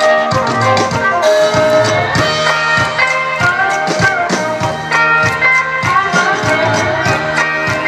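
Live band playing an upbeat song intro, instrumental with no vocals, over a steady drumbeat.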